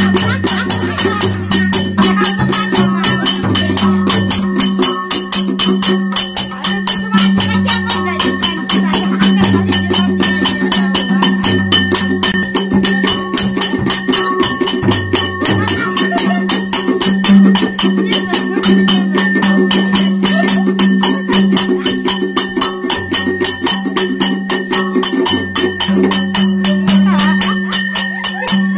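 Nepali folk drumming on a madal, a two-headed barrel drum, beaten in a fast, steady beat with a rattling jingle over it.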